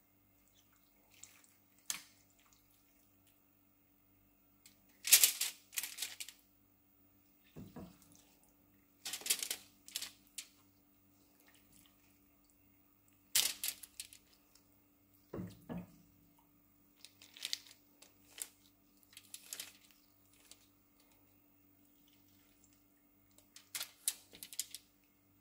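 Aluminium foil crinkling and wet squishes as raw marinated chicken breasts are handled and laid onto a foil-lined baking pan, in scattered short bursts with a couple of dull thumps.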